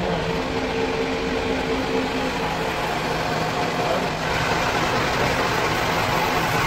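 Lathe running with a steady machine hum as it turns a seal blank in the chuck; about four seconds in, a hiss of cutting joins as the tool bites in and peels off shavings.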